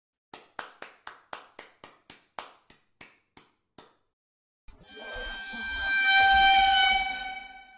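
Editing sound effect: a run of about a dozen sharp ticks that slow down over four seconds. After a short gap comes a single held high tone with overtones that swells and then fades away.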